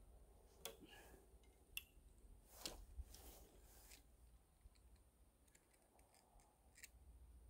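Near silence with a few faint clicks and rustles as an arrow is nocked onto a barebow bow's string and the bow is handled.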